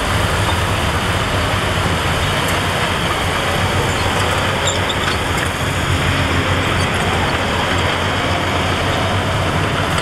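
Dump truck's diesel engine running steadily to drive the hydraulic hoist as the bed tips up, with the load of soil sliding out of the tailgate.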